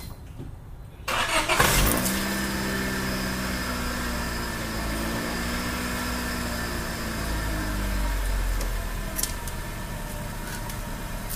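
A Honda Civic sedan's engine catches suddenly about a second in and settles into a steady idle, its pitch wavering slightly. Its exhaust blows through a muffler filled with bubble solution.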